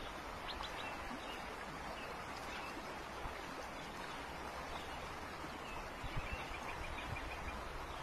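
Steady rush of a flowing river, with a few faint bird chirps near the start and a quick run of chirps about six seconds in.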